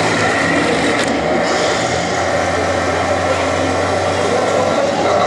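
Steady engine sound with a low hum whose tone shifts about two seconds in, with people talking in the background.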